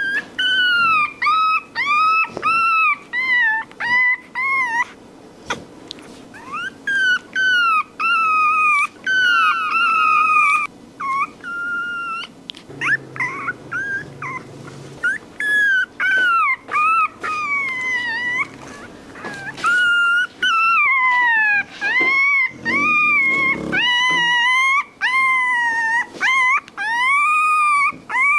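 Newborn Rottweiler puppies crying: a long run of high-pitched whimpers and squeals, each call rising and then falling, following one another with short gaps.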